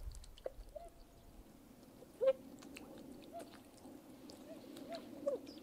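Swans calling softly: short, slightly bent honks about once a second, the loudest about two seconds in, over a low steady murmur with scattered light clicks.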